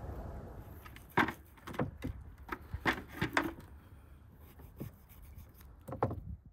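A knife working on a beef hoof on a wooden cutting board: a run of sharp knocks and scrapes between about one and three and a half seconds in, then quieter scraping, and one more knock near the end.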